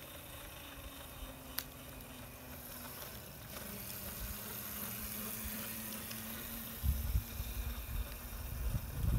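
Razor MX250 electric dirt bike's motor whining faintly as it rides along, its pitch dropping a little about three and a half seconds in. One sharp click comes between one and two seconds in, and low rumbling on the microphone sets in near the end.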